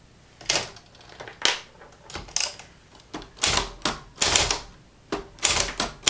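Olivetti Lettera 25 manual portable typewriter being typed on: a dozen or so sharp keystroke clacks of typebars striking the paper, irregularly spaced and coming faster in the second half.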